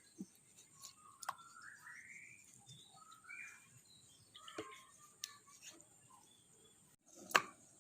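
Faint bird chirps, short rising calls early on, over scattered small clicks and taps from handling aloe vera leaves, with one sharper click near the end.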